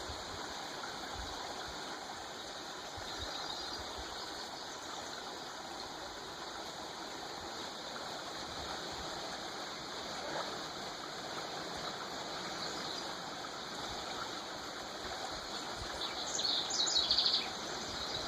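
Creek water running steadily over its bed. A few short, high chirps come near the end.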